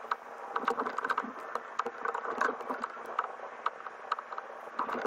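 Spinning reel cranked in short spurts, giving quick runs of light clicks, over a faint steady hum.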